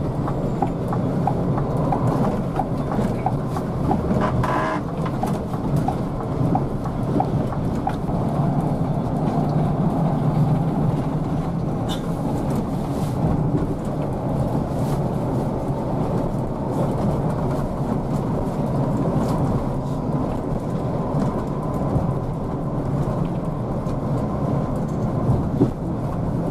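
Cabin drone of a Scania K360IB coach cruising on a highway: a steady low engine and road hum heard from the front of the bus.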